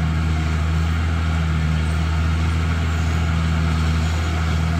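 Caterpillar D6R XL bulldozer's diesel engine running under load as the blade pushes a mound of soil, a loud, steady low drone that holds even throughout.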